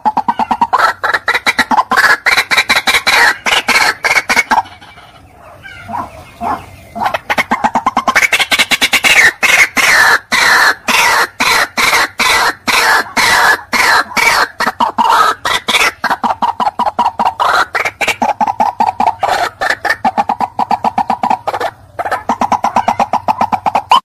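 White-breasted waterhen calling: a fast run of loud, rapidly repeated notes, several a second. The run breaks off for about two seconds around five seconds in, then resumes.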